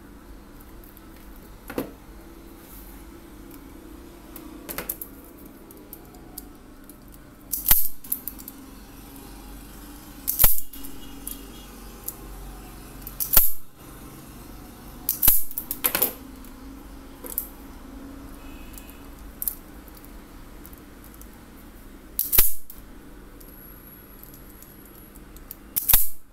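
Hand wire cutters and a spring-loaded automatic wire stripper snipping and stripping the insulation off twin-core electrical cable: a series of sharp, irregular snaps and clicks, about seven loud ones a few seconds apart, with small handling clicks between.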